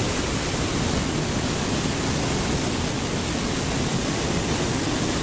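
Water rushing down the partly frozen Lower Falls of Johnston Canyon into its open plunge pool: a steady, even rush without break.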